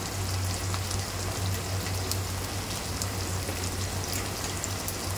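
Chicken mince, onions and ginger-garlic paste sizzling steadily in hot oil in a steel pot, with a low steady hum underneath.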